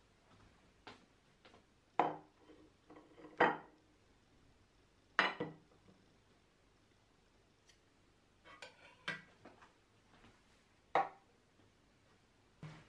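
Tableware being set down on a table: a metal saucepan put onto a ceramic plate and other items placed beside it, giving a handful of separate clunks and clinks, the loudest about two, three and a half, five and eleven seconds in.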